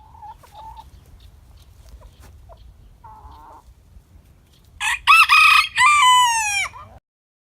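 Hens clucking softly, then a rooster crows loudly once, a multi-part cock-a-doodle-doo that falls in pitch at the end.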